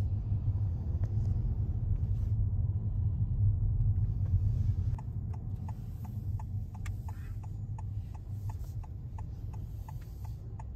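Low cabin rumble of a Honda Vezel hybrid moving off on its electric motor alone, with the petrol engine not running. About five seconds in a regular ticking starts, about three ticks a second.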